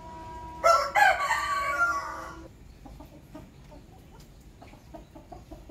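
A rooster crows once, a loud call of about two seconds starting just under a second in.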